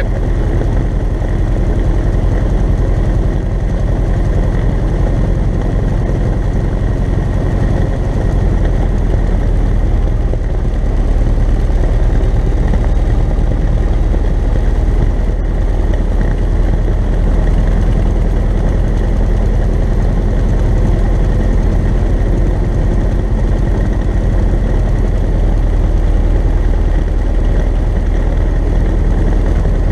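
Cessna 172N's four-cylinder Lycoming engine and propeller idling steadily, heard from inside the cockpit.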